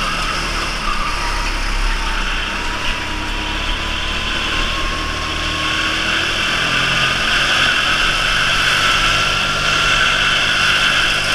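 Go-kart motor running at speed through a lap, heard from a camera mounted on the kart, its pitch climbing slowly over the last few seconds as the kart accelerates.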